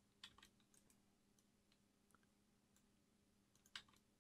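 Near silence broken by a few faint computer mouse clicks, scattered irregularly, the loudest a quick pair near the end.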